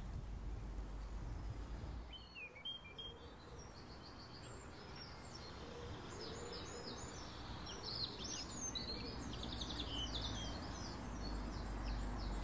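Several small birds chirping in short, quick, overlapping calls that grow busier after about two seconds, over a low steady background rumble.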